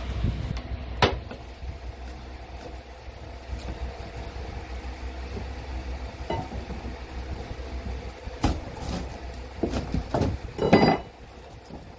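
Rotted vinyl flooring and crumbling particleboard subfloor being torn and pried up, with scattered knocks and a louder scrape of a metal flat bar near the end, over a steady low hum.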